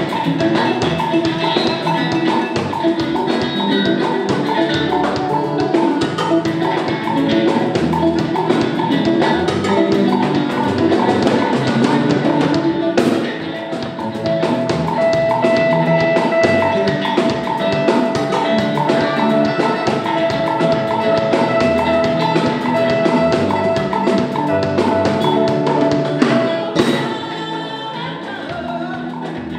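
Live band music: a drum kit, electric guitar and bass guitar playing together, easing off near the end.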